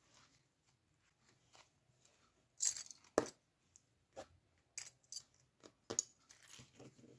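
Metal binder clips and a pen rattling and clicking as they are picked out of a small wicker basket and set down on paper: a string of irregular sharp clicks and short rustles, the loudest about three seconds in.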